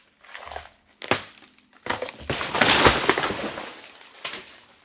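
A sharp crack about a second in, then about two seconds of loud crunching and rustling of leafy jungle undergrowth being crushed and broken.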